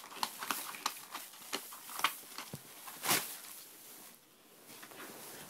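Plastic bag crinkling and rustling in quick irregular crackles as ferrets burrow and scramble in it, with one louder crackle about three seconds in.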